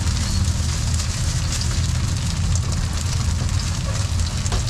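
Garlic chive cakes frying in shallow oil on a large flat pan, a steady sizzling hiss, over a steady low rumble.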